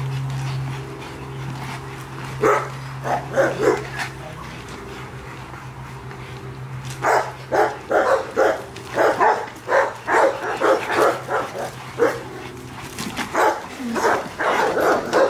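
Rottweilers barking in quick repeated series: a short run about two seconds in, then near-continuous barking from about seven seconds in. The barking comes from the penned dogs, which the owner says are jealous of the dogs at play. A steady low hum runs underneath.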